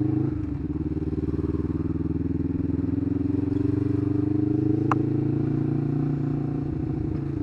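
Kawasaki GPZ500S parallel-twin motorcycle engine heard from the rider's helmet while riding at a steady cruise. Its note rises a little, then eases off slightly, with a single short click about five seconds in.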